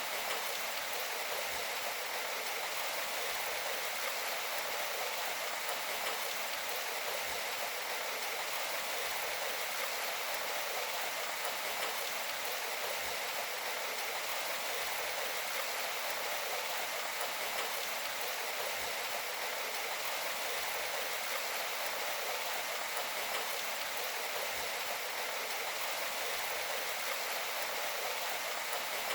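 Steady water noise, the sound of heavy rain or rushing water: an even, unbroken hiss with no deep component and no single drops standing out.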